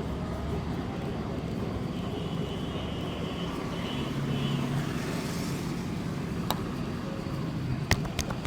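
Steady street traffic noise with a low vehicle engine hum. A sharp click comes about two-thirds of the way in, and a few more sharp clicks come near the end.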